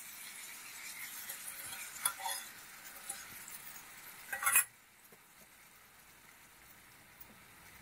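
Shredded onion, carrot and chilli sizzling in a frying pan as they are stirred with a spoon, with a few clinks of the spoon against the pan, the loudest about four and a half seconds in. After that the sizzle drops to a faint hiss.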